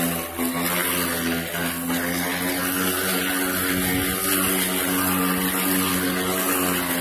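Cordless battery-powered lawn mower running, its electric motor and spinning blade giving a steady hum.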